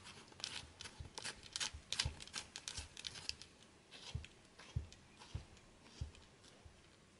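Faint, irregular scratchy clicks and rasps of a small penlight's tail cap being twisted onto the metal threads of its body, dying away about six seconds in.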